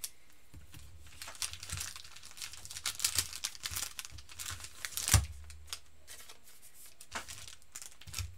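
Crinkling and tearing of foil trading-card pack packaging being handled, with a sharp knock about five seconds in and two lighter knocks near the end.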